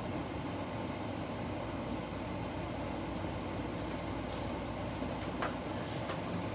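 Steady background noise of the room, a low hum with hiss, and a few faint clicks.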